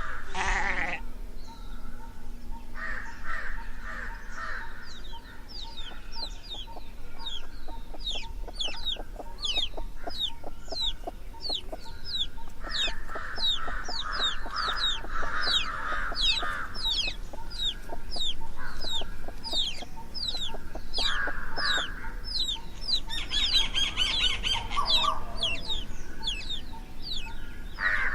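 Birds calling, one of them repeating a short, high, falling note about twice a second, with lower bird sounds in between.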